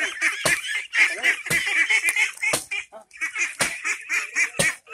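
A flock of young ducks peeping and chattering constantly as they are herded along, many short high calls overlapping. A sharp tap or knock comes about once a second.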